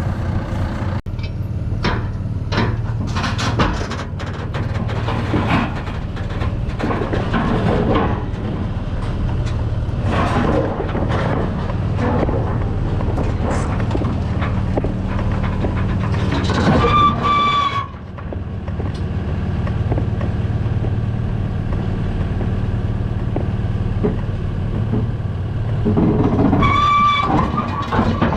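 Tractor engine running steadily, with metal knocks and clanks over it and, twice, a brief high-pitched tone lasting about a second.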